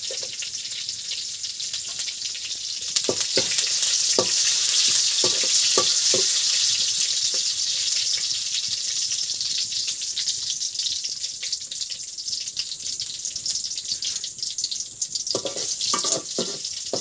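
Curry leaves, dried red chillies and panch phoron sizzling and spluttering in hot oil in a metal kadai (the tadka for dalma). The sizzle swells about three seconds in and then slowly dies down, while a metal spoon knocks and scrapes against the pan as it is stirred.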